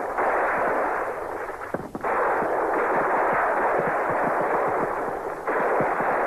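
Dense, continuous gunfire, a battle soundtrack of massed rifle and machine-gun fire heard as a crackling roar of rapid reports. It sounds muffled and narrow, as on an old recording, and briefly drops out just before two seconds in.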